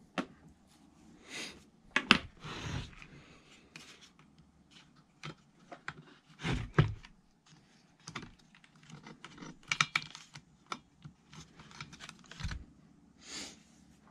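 Small clicks, taps and scrapes of hand work on a Stihl FS 55 R trimmer's carburetor: the carburetor and metal hand tools being handled as the carburetor is worked along its mounting studs, with a sharper click about two seconds in and a knock near the middle.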